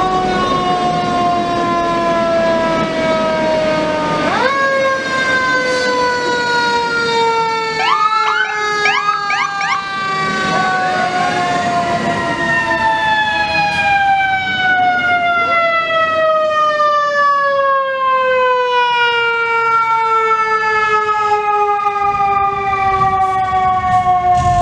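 Fire truck siren, a mechanical-style wail that slowly winds down in pitch and is wound back up sharply twice, about 4 s in and again about 12 s in, with a few quick short whoops in between.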